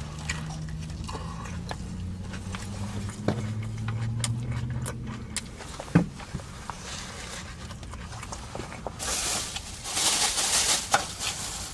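Close-up chewing of a sushi burrito: wet mouth clicks and lip smacks, with a low hummed "mmm" of enjoyment over the first half and a louder hissing rustle near the end.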